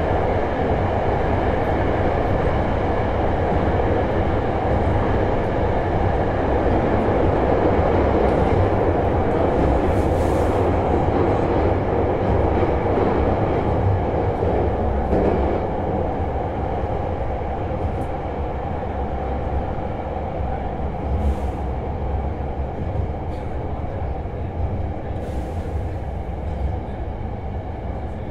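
Hankyu 6300-series electric train running along the track, heard from inside the car: a steady rumble of wheels and running gear. It becomes a little quieter about halfway through.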